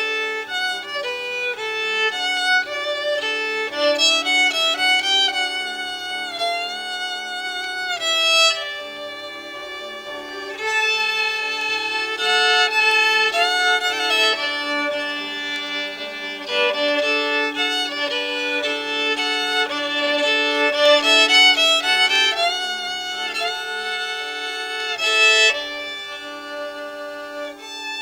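Violin playing a slow melody with vibrato, holding each note for about a second.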